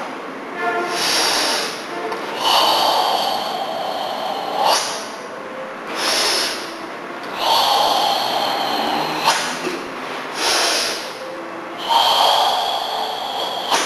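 Deep, forced kata breathing from a karateka performing Tensho. Short breaths alternate with longer, louder exhalations of about two seconds each, three times over, every four to five seconds.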